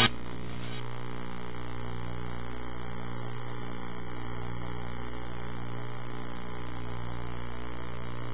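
Steady electrical mains hum, a low buzz of fixed tones with faint hiss and nothing else: the concert sound has dropped out of the recording.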